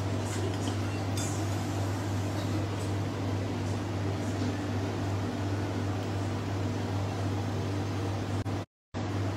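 Steady hum of an electric fan-type appliance with a low mains drone, with a few faint clinks in the first second or so. The sound cuts out for a moment near the end.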